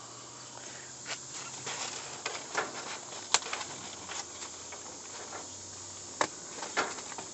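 Plastic trash bags rustling and crinkling as an arm reaches in among them in a dumpster, with scattered sharp crackles, the loudest about three seconds in, over a steady faint hiss.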